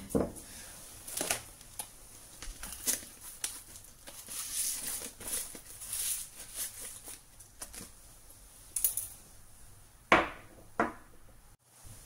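A paper coffee bag crinkling and rustling as it is handled and opened, in short irregular rustles, with two louder crackles near the end.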